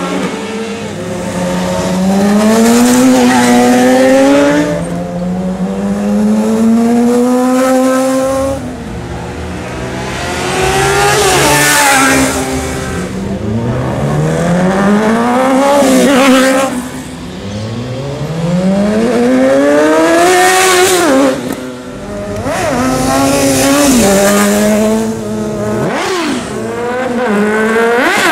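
Sport motorcycle engines accelerating hard, one bike after another. Each engine's pitch rises through the revs, drops at a gear change and climbs again, with the sound swelling and fading as each bike passes.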